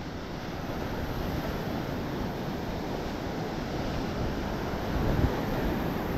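Sea surf washing on the shore with wind buffeting the microphone: a steady rushing noise.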